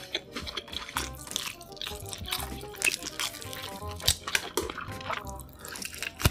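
Background music over close-miked eating sounds: wet chewing of roast chicken with sharp lip-smacking clicks through the whole stretch.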